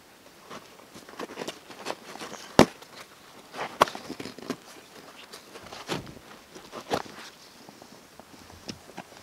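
Backpack webbing straps and plastic buckles being handled: irregular rustling and scattered sharp clicks, the sharpest about two and a half seconds in.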